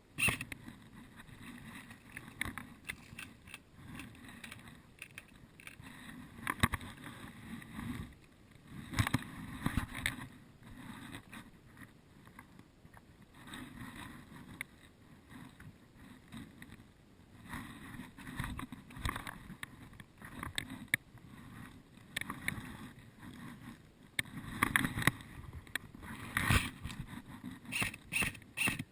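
Footsteps crunching through leaves and twigs on a forest floor, uneven at first, then settling into a steady walking pace of about two steps a second near the end.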